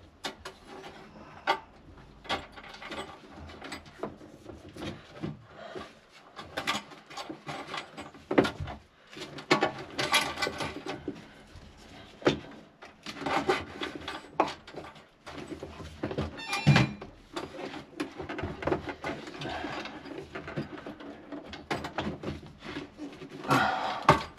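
Hand work on electrical cables and tools: irregular scraping, rubbing and clicking, with occasional louder knocks.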